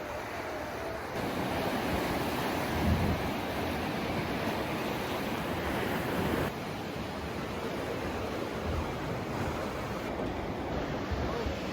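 Sea surf washing onto the shore, with wind gusting across the microphone in low rumbles. The noise shifts abruptly twice.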